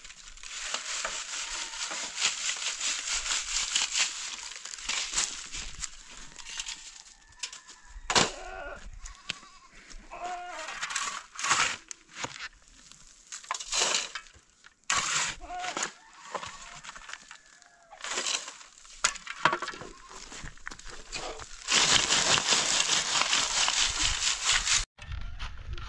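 Soil and gravel shaken in a round wire-mesh sieve, a steady rattling hiss of grit pouring through the mesh, in two long spells, one starting just after the start and one near the end. Between them a shovel scrapes and digs into stony ground in short, separate strokes.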